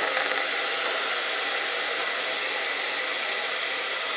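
Wet ground masala paste poured into hot oil with mustard seeds and curry leaves, setting off a steady hissing sizzle that starts suddenly and eases slightly.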